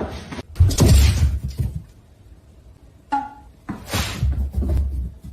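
Two loud clattering crashes, one about a second in and another about four seconds in, with a short high-pitched cry between them.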